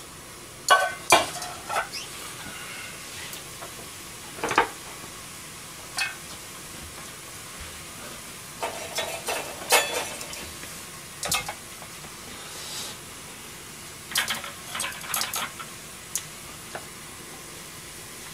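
Noodles boiling in a shallow pan of water, a steady bubbling hiss. Over it come sharp clicks and taps of utensils against the pan, singly and in short clusters, as the noodles are stirred.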